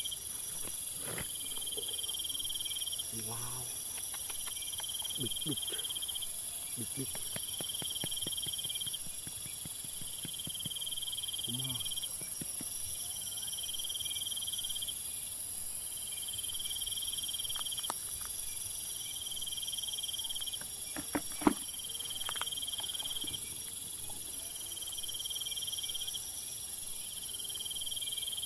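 Insects trilling steadily: a constant high whine, with a lower trill that comes and goes in spells of a second or two. Under it are scattered light knocks and clicks as turtles are handled, with one sharp click a little past the middle.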